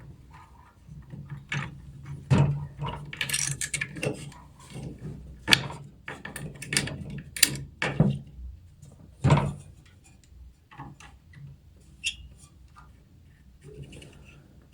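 Sharp plastic clicks and knocks, a dozen or so at uneven intervals, as the push-pins of a CPU heatsink are pressed into the motherboard holes, with fewer in the last few seconds. One pin won't lock, which the builder takes for a broken pin.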